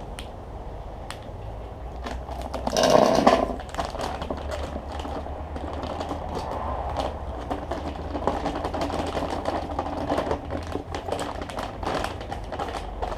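Rustling and crackling from dry building materials being handled: one loud rustle about three seconds in, then a long run of small clicks and crackles over a steady low rumble.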